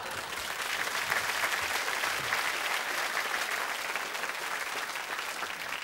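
Live audience applauding steadily, dying down near the end.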